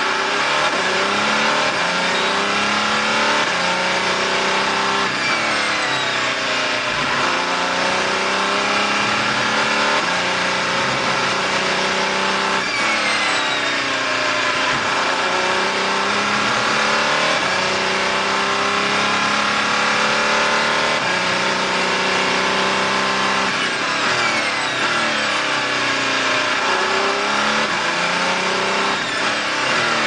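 Audi R18 Le Mans prototype's V6 turbodiesel heard from inside the cockpit, accelerating in stepped rises in pitch through quick upshifts. Several times, about 5, 13 and 24 seconds in, the pitch sweeps down as the car brakes for a corner, with a high whine falling alongside, then climbs again as it accelerates out.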